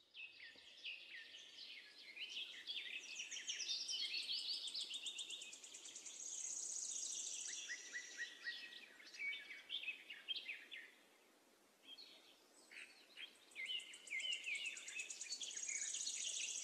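Several birds chirping and trilling together, many short calls overlapping, with a high thin trill held for a couple of seconds at a time. The calls thin out briefly about two-thirds of the way through.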